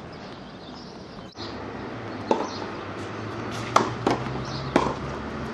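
Tennis ball being hit by rackets and bouncing on a hard court: four sharp pops from about two seconds in, over a low steady hum.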